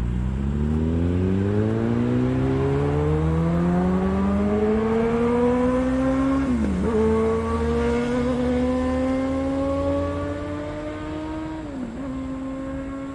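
Kawasaki Vulcan 1700 Vaquero's V-twin engine accelerating, its note climbing steadily and dropping briefly at two upshifts, about seven seconds in and again near the end.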